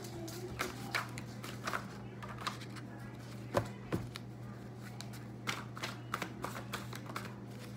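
A tarot deck shuffled and handled by hand: scattered short slaps and flicks of card against card, over a steady low hum.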